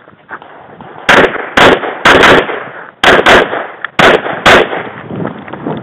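Glock 24 pistol in .40 S&W firing a string of about eight shots, starting about a second in, mostly as quick pairs.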